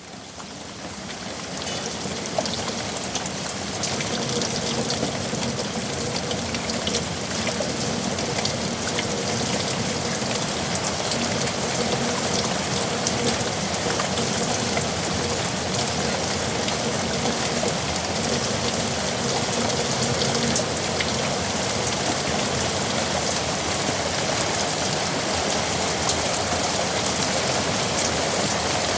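Heavy rain falling on a yard: a steady, dense hiss with individual drops ticking through it. It fades in over the first few seconds, then holds steady.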